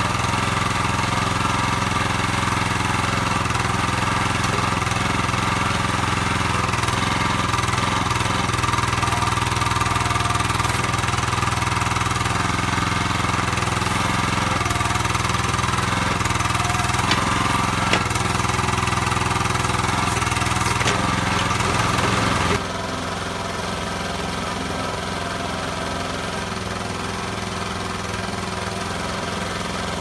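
Small single-cylinder petrol engine of a Kellfri towable backhoe running steadily while the backhoe digs. About three-quarters of the way through, the sound drops abruptly to a lower level and runs on steadily.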